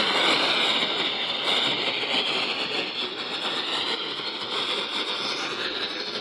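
Radio static: a steady hiss from a weak, poorly received broadcast signal.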